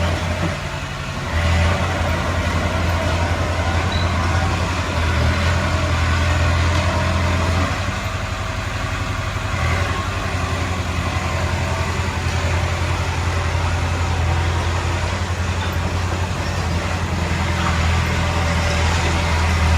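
Heavy diesel engine running steadily with a deep, even hum. It drops briefly about a second in and eases a little for a couple of seconds around eight seconds in.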